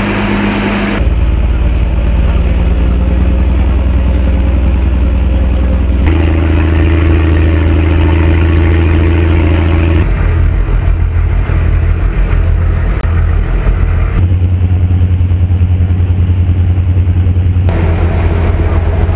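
Passenger ferry's engine droning steadily, heard on board with water and wind noise; its pitch and level shift abruptly several times, at about one, six, ten, fourteen and eighteen seconds.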